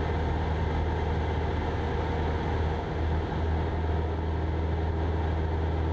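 Cessna 172 Skyhawk's piston engine and propeller droning steadily in flight, heard through the cockpit intercom, with a slight dip in level about three seconds in.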